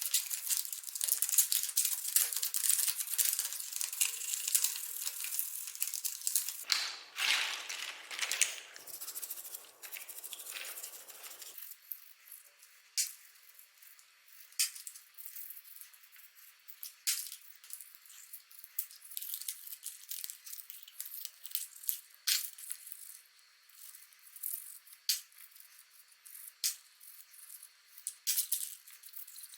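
Handwork on a mechanical keyboard during its cleanup: dense scrubbing and rattling for the first few seconds, a fuller rubbing noise for a few seconds after that, then scattered light clicks and taps every second or two.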